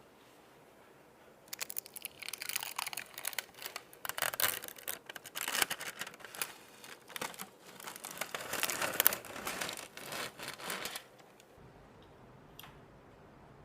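Packaging crinkling and tearing as it is pulled open, in quick irregular crackles for about nine seconds before stopping. A single short click follows near the end.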